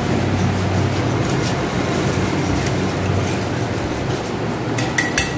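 Small wire whisk mixing custard powder and water in a steel bowl, scraping and ticking lightly against the metal over a steady rushing kitchen hum. Near the end come a few sharp metallic clinks against the bowl.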